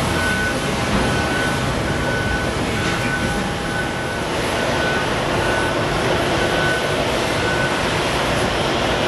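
Steady roar of jet airliner engines across the airfield, with a vehicle's reversing alarm beeping on one high tone about once a second, stopping near the end.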